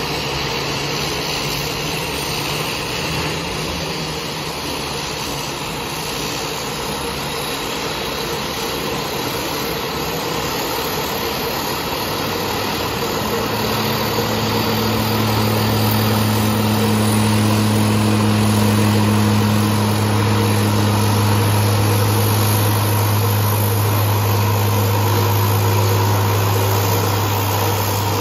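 Floatplane engine noise across the harbour: a steady rushing engine sound, joined about halfway by a low, steady droning note that grows louder and stays to the end.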